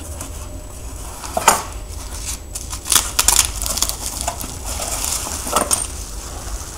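Plastic bubble wrap and cardboard packaging rustling and crinkling as a parcel is unpacked by hand, with sharp crackles about one and a half, three and five and a half seconds in.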